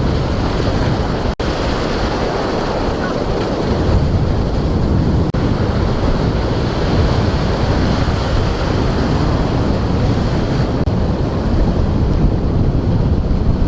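Wind rumbling on the microphone over the steady wash of breaking surf, with two brief dropouts in the sound.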